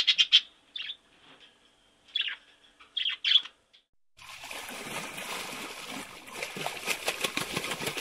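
A green parrot calling: a quick run of short calls, then single calls about one, two and three seconds in. After about four seconds, a steady bubbling and trickling of aquarium water takes over.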